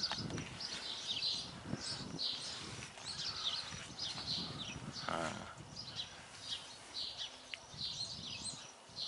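Small birds chirping: many short, high calls one after another, over faint low rustling and scuffing.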